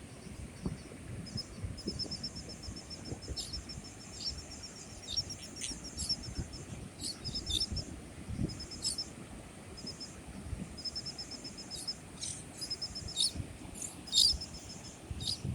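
Small birds calling: repeated rapid high-pitched trills, some lasting a second or two, mixed with short sharp chips, over a low steady rumble.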